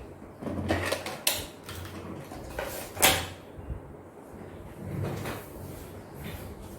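Handling of the LED TV set during disassembly: a few sharp clicks and knocks of plastic and metal parts, the loudest about three seconds in, over a faint low hum.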